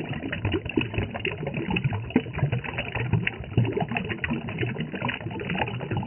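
Small rocky stream spilling over a low ledge of rocks into a shallow pool, splashing and bubbling unevenly.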